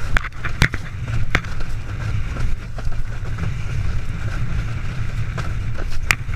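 Wind buffeting an action camera's microphone as a windsurfer planes fast over choppy water, with a steady rush of water and spray beneath. There are a few sharp knocks, about half a second, a second and a half and six seconds in.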